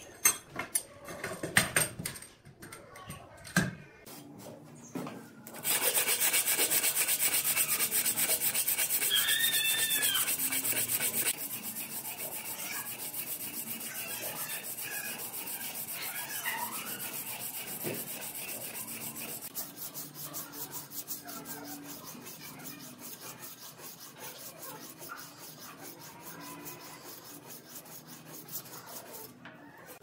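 Hand-held abrasive tool rubbed rapidly back and forth along a forged steel knife blade, a steady rasping. It starts a few seconds in after a few light knocks, is loudest for several seconds, then goes on more quietly. A short bird chirp comes about ten seconds in.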